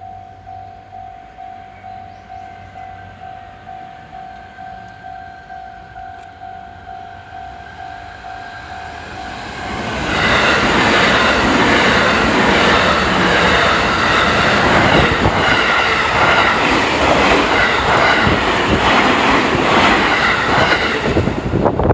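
Level-crossing warning bell dinging in a steady repeating pulse, then about ten seconds in two electric commuter trains, a JR 207 series and a JR 321 series, pass each other over the crossing, their loud rushing and wheel clatter over the rail joints drowning out the bell until near the end.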